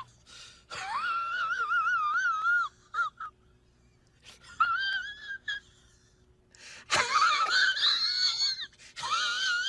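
Comic sound effect of a high-pitched, wavering wail, heard four times with short gaps between.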